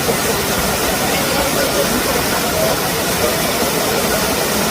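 Waterfall water rushing in a steady, loud hiss.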